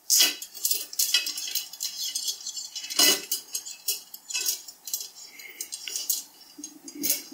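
Steel bicycle spokes clicking and clinking against one another and the hub as a spoke is threaded through a hub-flange hole while lacing a wheel. The clicks are irregular, with a few sharper ones near the start, about three seconds in and near the end.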